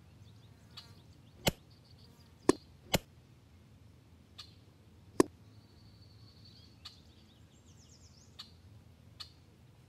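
Sharp cracks of an EDgun Leshiy 2 PCP air rifle firing a double tap, with the pellets striking a squirrel: four loud snaps between about one and a half and five seconds in, with fainter ticks and faint high chirps between them.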